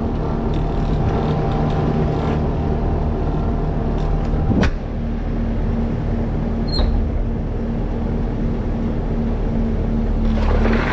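Compact loader's engine running steadily with a low hum. About four and a half seconds in there is one sharp knock, and a short high squeak follows a couple of seconds later. Near the end the sound grows louder and rougher as the loader begins to work.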